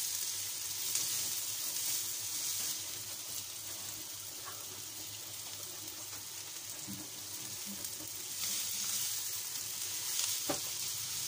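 Diced onion sizzling in olive oil in a nonstick frying pan, sautéing over the heat. It is stirred now and then with a silicone spatula, with a light tick near the end.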